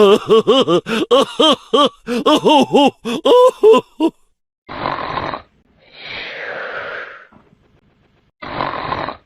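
Meme sound effects: a voice making a rapid run of short sounds, each rising and falling in pitch, for about four seconds. After a short gap come loud noisy breaths, a short breath in, a longer breath out that falls in pitch, and another breath in near the end.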